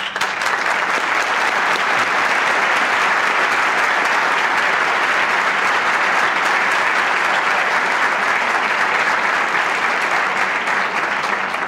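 Audience applause in a large hall: many people clapping in a dense, steady roar that starts abruptly and begins to die away near the end.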